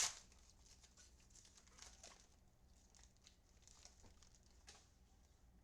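Faint rustling and light taps of trading cards being handled and flipped through, with one sharper tap at the very start.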